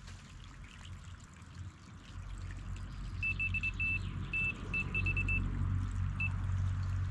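Delkim electronic bite alarm on a rod pod giving a quick, irregular run of about ten short high beeps, then one more, signalling line moving over its sensor after a take. A low rumble builds underneath from about two seconds in.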